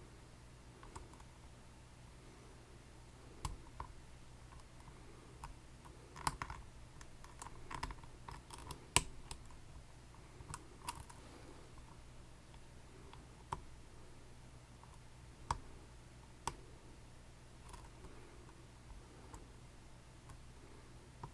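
Scattered small metal clicks and taps of lockpicking tools working in a Dierre New Power lock cylinder, bunched around the middle and loudest about nine seconds in.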